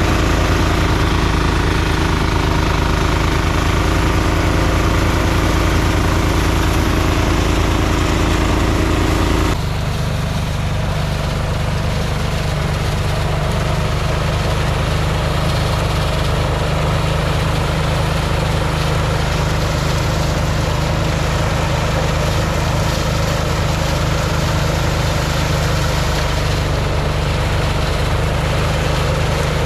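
An engine running steadily, with a low, even drone. Its tone shifts abruptly about ten seconds in, then carries on steadily.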